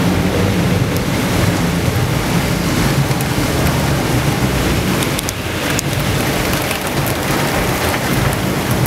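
Strong wind and rain: gusts rumble heavily on the microphone, over the hiss of falling rain with scattered sharp ticks of raindrops.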